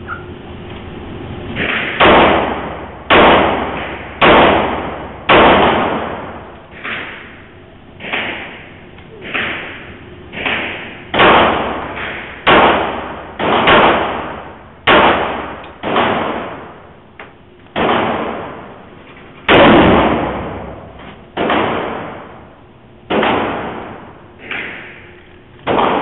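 Pistol shots fired one after another, about twenty in all at roughly one a second with uneven spacing, each sharp crack trailing off in a ringing echo.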